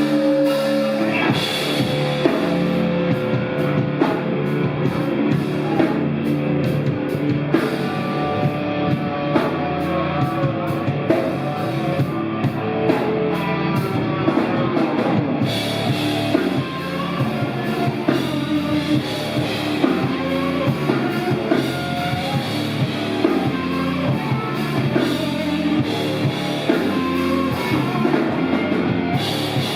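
Live rock band playing a heavy grunge song with electric guitar, bass and drum kit. A few held notes ring at the start, and the full band comes in about a second in.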